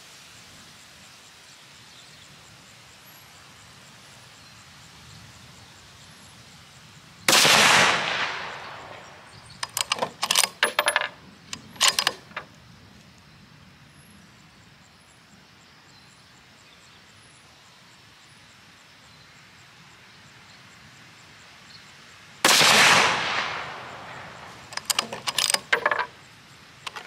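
Savage Axis II bolt-action rifle in .243 Winchester fired twice, about fifteen seconds apart, each shot ringing away over about a second. A couple of seconds after each shot comes a quick run of metallic clicks as the bolt is worked.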